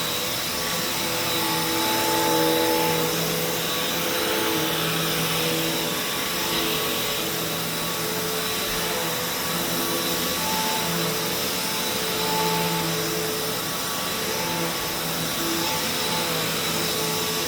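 Hoover Taskvac commercial bagged upright vacuum running on carpet: a steady rush of air with a motor hum whose tones shift and come and go as it works.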